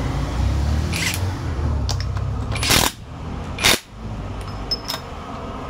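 Cordless impact driver fired in short bursts, tightening the nut on a shaft of a Bajaj engine casing: a few brief hammering rattles, the loudest about three seconds in, over a low steady rumble.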